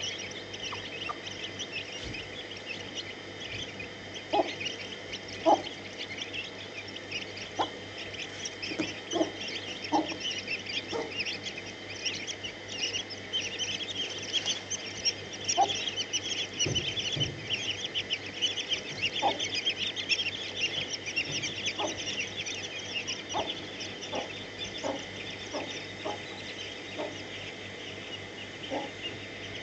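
A brood of chicks peeping constantly in a dense stream of short high chirps, with a mother hen's short low clucks every second or two.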